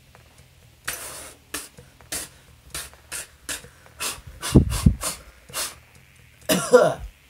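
A person blowing a rapid series of short, sharp puffs of air through pursed lips, about a dozen in a row, the loudest just past the middle and near the end, blowing loose face powder off the face and away from the mouth and nose.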